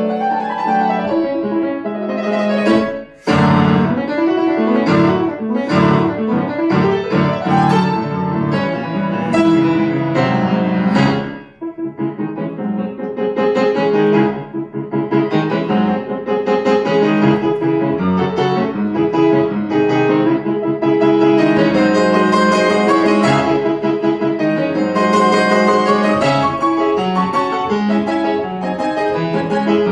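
Grand piano played solo: a fast, loud classical passage of rapid runs and chords. It breaks off briefly about three seconds in and again about eleven seconds in.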